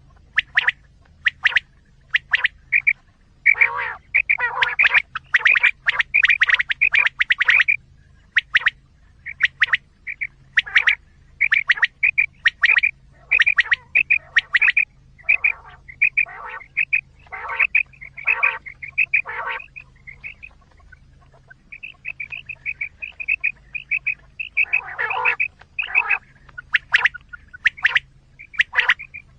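Quail calls played as a hunting lure: short, sharp calls repeated in quick clusters with brief gaps, over a faint low hum.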